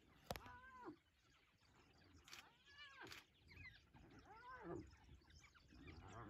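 Faint squealing and yelping calls from hyenas and African wild dogs fighting over a kill: about four calls of half a second each, each rising then falling in pitch. A sharp click comes just after the start.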